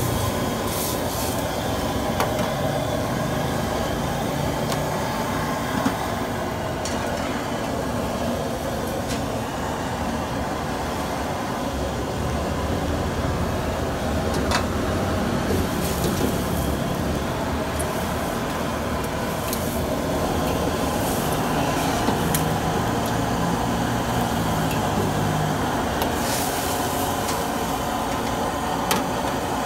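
Steady roar of a gas wok burner running at full flame, with cooking noise from the wok. A few sharp metallic clinks, a ladle touching the wok, come through now and then.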